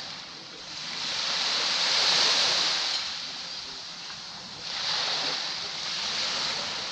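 Caribbean sea waves breaking and washing onto the beach: one wave builds to a peak about two seconds in, and a second one rushes in just under five seconds in.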